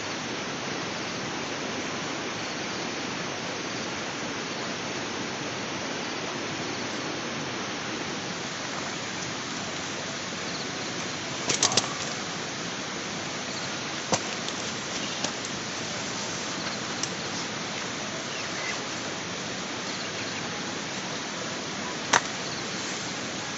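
Steady rushing water from a river or waterfall, an even unbroken roar, with a few sharp clicks or knocks about halfway through and again near the end.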